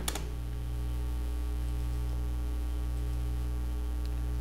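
Steady electrical mains hum with evenly spaced overtones, with a couple of sharp clicks just at the start.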